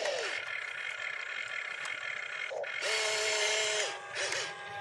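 RC excavator's electric motors whining in spurts as the boom and arm move: a short falling whine at the start, then about three seconds in a whine that winds up, holds steady for about a second and winds down, followed by shorter spurts near the end.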